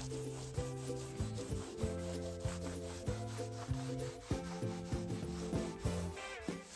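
Repeated rubbing strokes of hand cleaning, a cloth or brush working over a surface, over soft held musical tones.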